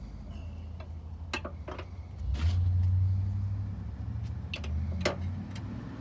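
Low, steady hum of a car's V6 engine idling, heard from inside the car. It swells louder for about a second, about two and a half seconds in. Several sharp clicks and taps come over it.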